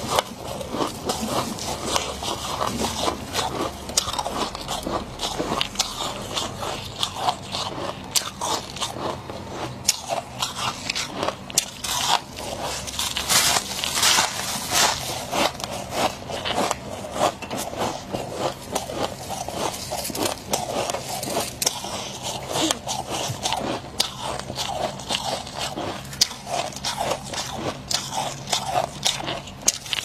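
Thick freezer frost being scooped by hand and bitten and chewed: a dense, continuous run of crisp crunches and crackles, loudest around the middle.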